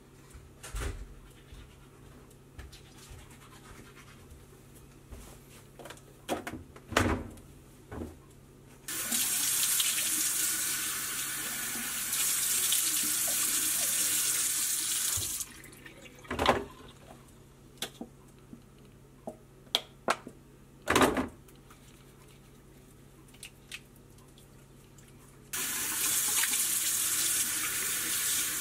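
Tap water running into a washbasin in two spells, each several seconds long, with a few sharp knocks and clunks in the quiet gaps between, the loudest of them louder than the water.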